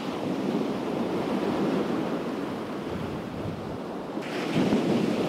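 Surf breaking and washing up the beach, swelling louder as another wave breaks about four seconds in, with wind on the microphone.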